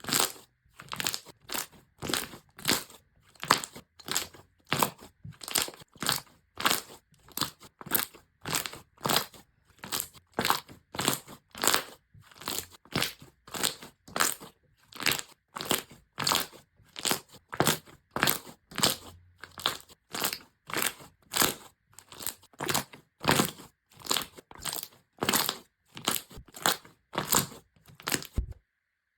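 Slime being pressed and squeezed by hand in a steady rhythm, each press giving a short crisp crunch, about one a second; the crunching stops suddenly near the end.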